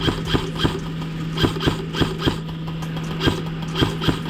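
Airsoft rifle fired in rapid single shots, a sharp click-like crack about three or four times a second at uneven spacing, over a steady low mechanical hum.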